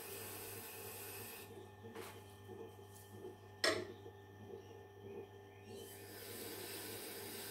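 Faint steady hum of a Tormek sharpening machine, with light scraping and handling of a folding knife and its jig, and one sharp click about three and a half seconds in.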